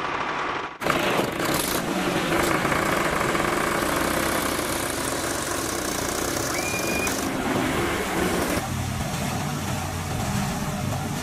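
An engine running, cutting in abruptly about a second in and settling to a lower, steadier note about three-quarters of the way through.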